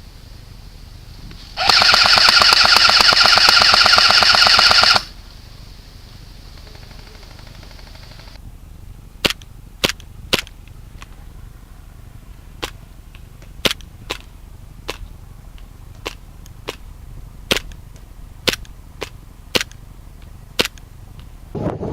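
Airsoft gun firing one loud full-auto burst of about three seconds, a rapid buzzing stream of shots. Later comes a scatter of a dozen or so single sharp snaps at irregular intervals.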